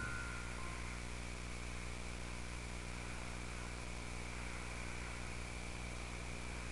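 Steady low electrical-sounding hum with hiss, with no events in it. The last glockenspiel-like chime notes of the preceding music fade out in the first moment.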